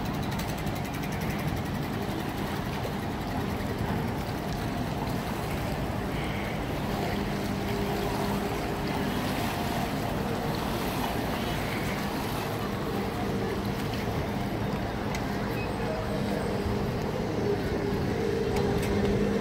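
A passing river tour boat's engine running with a low steady hum, over a wash of water lapping against the stone embankment.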